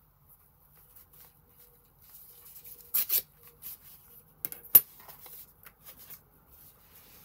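Paper torn against a metal ruler: two quick rips about three seconds in, then a single sharp clack, the loudest sound, as the ruler is moved and put down, with light paper rustling around it.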